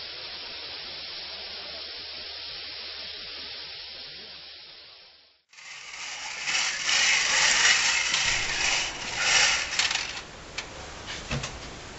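A steady hiss fades out. About halfway through, a small toy bingo cage is hand-cranked, and its little balls rattle and tumble inside for a few seconds, then give a few scattered clicks as it slows.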